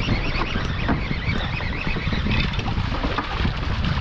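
Steady wind rushing over the microphone on an open boat at sea, a dense even hiss heaviest in the low end.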